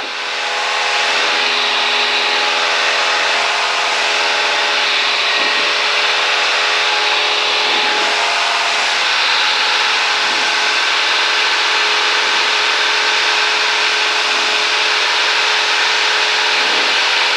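Cessna 172's piston engine and propeller running steadily in flight, heard from inside the cabin as a constant drone with a rushing of air over it.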